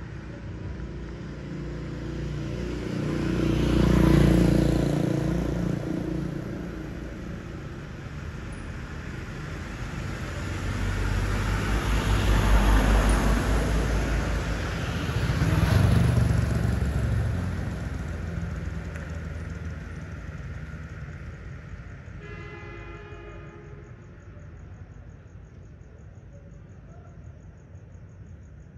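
Road vehicles passing by one after another, the engine and tyre noise swelling and fading, loudest about 4 s in and again between about 12 and 16 s in. Near the end a vehicle horn gives one short toot of about a second and a half, and crickets keep up a faint, steady chirping after it.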